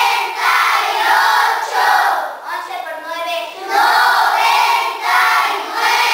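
A class of children chanting a multiplication table in unison in Spanish, in a sing-song rhythm of phrases about a second apart with a short pause midway.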